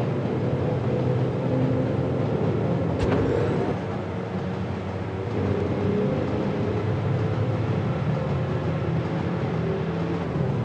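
Train running with a steady rumble, and one sharp click about three seconds in.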